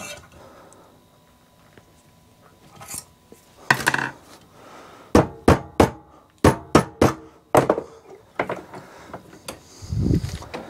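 A quick, irregular run of about eight sharp metal knocks and taps as the ends of stiff wire legs are bent over with hand tools, then a duller thump near the end.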